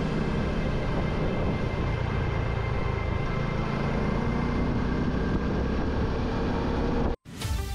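Motorcycle riding on the road: a steady engine note under rushing wind noise. It cuts off abruptly about seven seconds in, and electronic music starts.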